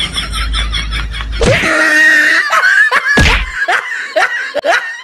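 Loud laughter: a quick run of pitched bursts, about five a second, then a held cry and several short laughs that fall in pitch.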